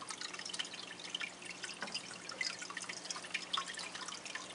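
Aquarium bubbling: air bubbles rising in the tank and popping and dripping at the water surface in quick, irregular small pops, over a steady low hum.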